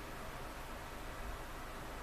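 Steady faint hiss of background room tone, with no distinct sounds.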